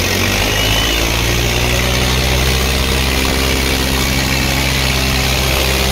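Diesel tractor engine running at a steady speed, low and even, over the noise of a crowd.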